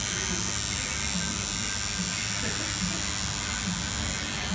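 Electric tattoo machine buzzing steadily as it works the needles into skin.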